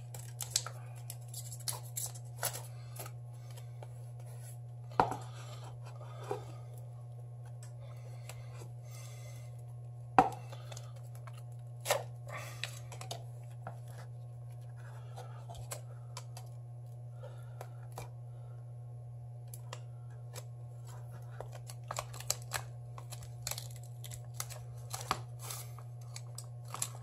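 Hand tools prying and cutting at the heavily glued glass edge of a Samsung Galaxy S7 Edge phone: scattered scrapes and clicks with a few sharp snaps, the loudest about ten seconds in, over a steady low hum.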